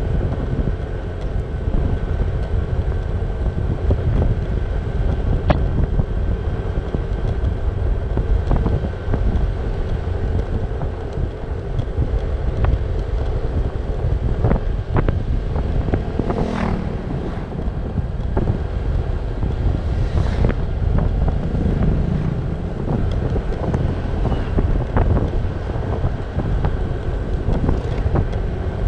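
Wind buffeting the microphone over a motor scooter's engine running at a steady cruise of about 50 km/h, with a couple of brief whooshes about halfway through.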